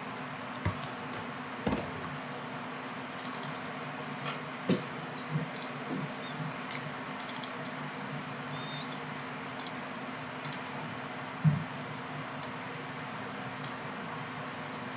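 Scattered computer keyboard and mouse clicks, a dozen or so irregular taps with the loudest near the middle and about two-thirds through, over a steady low electrical hum.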